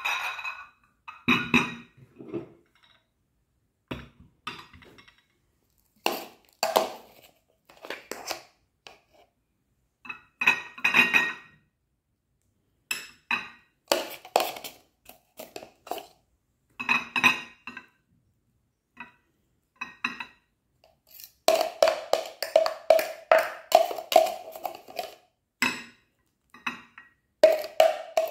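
Tableware being handled: ceramic plates and glass bowls set down and knocking together in short clusters of clinks. Later comes a denser run of scraping and tapping, a metal spoon working against the plastic blender jug.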